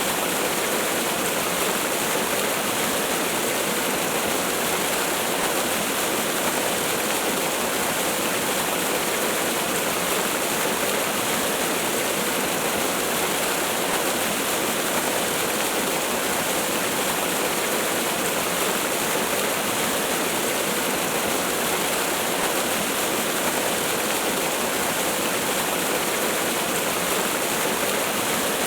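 Waterfall: a steady, unbroken rush of falling water, a dense hiss with little deep rumble.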